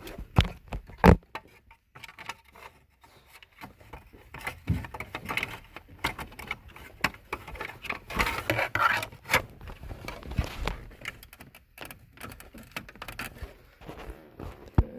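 Plastic steering-column trim covers being worked and pushed into place: scraping and handling noise with many sharp clicks and knocks, the loudest about a second in.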